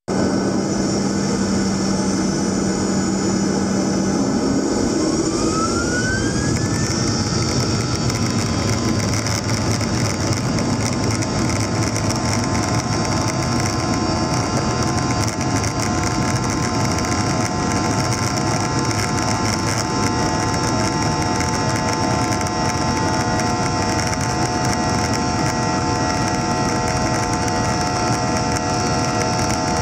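Cabin noise inside a Boeing 737-800: the CFM56 jet engines running with a steady rushing roar. About five seconds in, a whine rises in pitch, and steady engine whine tones carry on through the rest.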